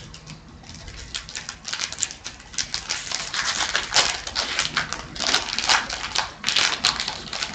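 Wrapper of an Upper Deck Series 1 hockey card pack crackling as it is torn open and the cards are pulled out and handled. A rapid, uneven run of crinkles and clicks that thickens from about two seconds in.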